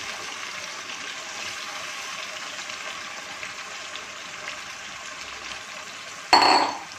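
Raw beef chunks frying in hot oil with ginger-garlic paste in a nonstick wok, a steady sizzle as the meat begins to sear. About six seconds in, a brief loud sound cuts in and quickly fades.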